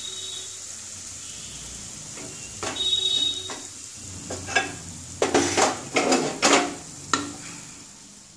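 Wooden spatula stirring and scraping cooked red spinach around a non-stick pan, the greens still sizzling faintly just after the gas is turned off. About halfway through comes a run of sharper scrapes and knocks of the spatula against the pan.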